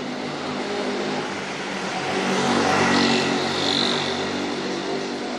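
A motor vehicle passing by, its engine noise swelling to a peak about three seconds in and then fading.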